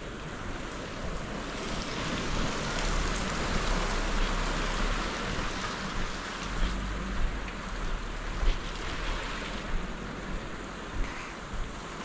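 Steady hiss of rain falling on wet wooden wharf decking and the sea, with wind rumbling on the microphone. A few short thumps stand out in the second half.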